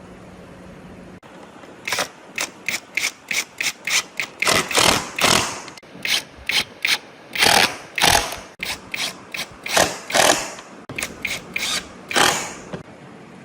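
A mechanism worked in a quick series of short strokes, about two to three a second, some longer than others, starting about two seconds in and stopping near the end.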